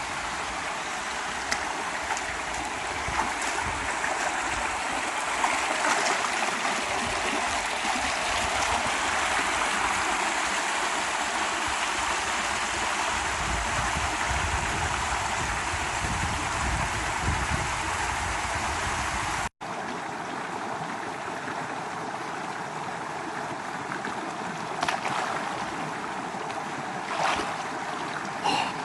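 Steady rushing of a waterfall's falling water. About two-thirds of the way through it cuts off abruptly and comes back somewhat quieter, with a few light knocks near the end.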